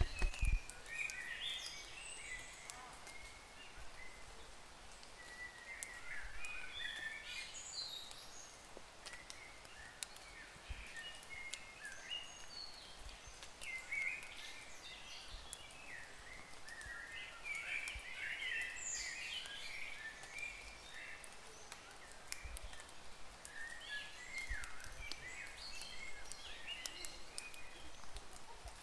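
Several wild birds chirping and calling, short high notes overlapping one another over a faint outdoor hiss.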